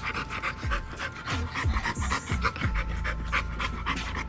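An American bully dog panting quickly and steadily, about four to five breaths a second.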